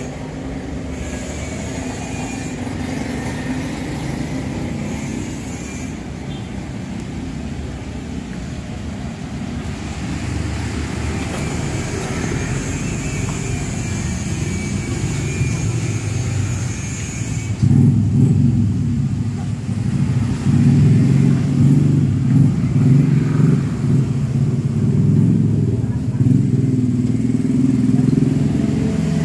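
Road traffic: vehicle engines running as a steady low rumble, getting louder and rougher about two-thirds of the way through.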